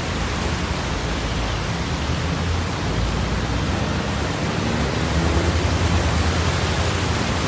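Flooded-street ambience: a steady hiss of rain and water, with a low traffic rumble underneath that swells a little in the second half.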